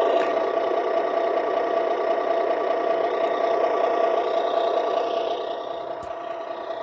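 2019 Hess Tow Truck toy playing an electronic engine sound effect through its small speaker: a steady, buzzy idling-engine rumble that eases off a little near the end.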